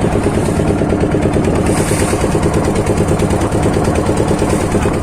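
Boat engine running steadily at a rapid, even firing rate.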